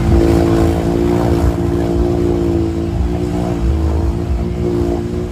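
Off-road buggy engine held at high revs, a steady strained note that wavers slightly about three seconds in, over a low rumble.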